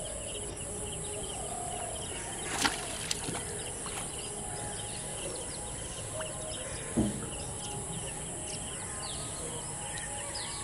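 Outdoor ambience of small birds chirping repeatedly over a steady high hiss. Two brief sharp knocks stand out, one about a quarter of the way in and a louder, deeper one about two-thirds through.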